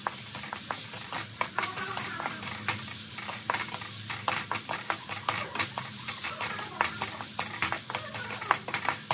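Wooden spatula stirring and scraping pieces of meat around a metal wok, with frequent irregular scrapes and taps against the pan over a steady sizzle of frying.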